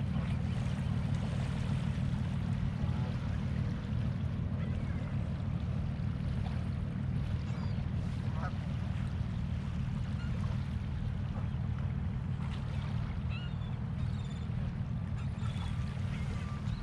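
Steady low rumble with faint waterfowl calls, a few short honks and quacks, scattered through the middle and latter part.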